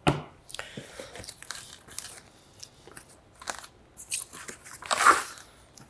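Crinkling and rustling of a plastic bag and cardboard packaging as a monitor stand base is lifted out of its box, loudest about five seconds in. A short knock right at the start as a cable is set down on the table.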